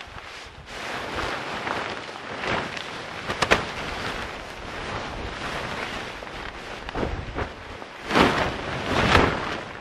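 Tent fabric of a UP-2 pop-up hub tent rustling and swishing as the tent is pushed up and opened out from inside, with a sharp click about three and a half seconds in and two loud swishes near the end.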